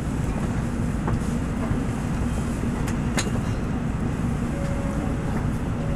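Steady low cabin rumble inside a 700A-series Shinkansen car standing at a platform, with a sharp click about three seconds in.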